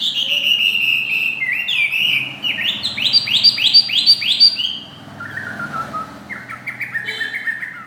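Chinese hwamei (laughingthrush) singing loud, varied whistled phrases. It opens with a long falling whistle, runs into a quick series of about five rising notes, then goes on with softer falling phrases and repeated notes near the end.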